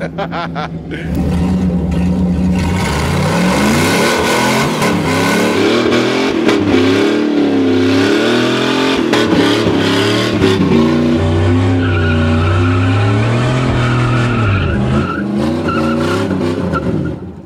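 Jeep DJ5 postal truck's swapped-in Dodge 318 V8 revving hard through a burnout and donuts, its pitch rising and falling again and again, with the tires squealing on the asphalt. The revving picks up about a second in and drops away near the end.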